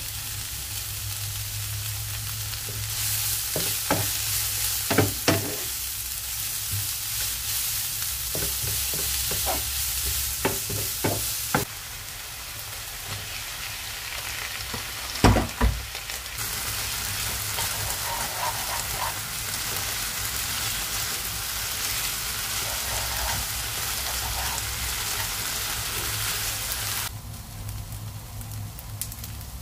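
Vegetables sizzling as they are stir-fried in a nonstick frying pan, a steady hiss broken by several sharp knocks in small clusters. The sizzle drops quieter near the end.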